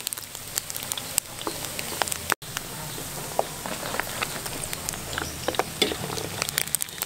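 Frogs deep-frying in hot oil in a wok: a steady sizzle with scattered pops and crackles, broken by a brief gap a little over two seconds in.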